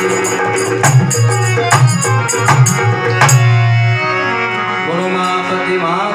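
Rajasthani folk music: hand-drum strokes and a fast metallic jingle over a steady melodic drone. The drumming stops about three and a half seconds in, leaving sustained tones with sliding pitches.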